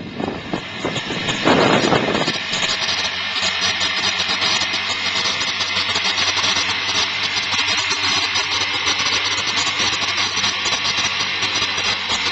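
Motor scooter engine running steadily, with a steady hiss over it. A couple of gusts of wind hit the microphone in the first two seconds.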